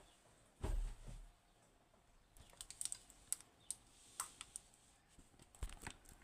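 Handling of a Western Electric 30B lever lock: a dull thump about a second in, then a string of light, irregular clicks and taps of small metal parts.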